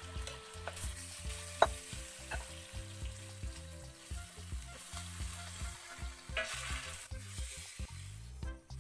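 Marinated chicken pieces sizzling in a stainless steel pot while a wooden spoon stirs them, with small scraping clicks and one sharp knock about a second and a half in.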